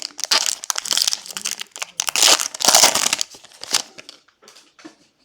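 Foil wrapper of a Panini Mosaic football hobby pack crinkling and tearing as it is ripped open, in several loud crackling bursts over the first four seconds, then a few faint rustles.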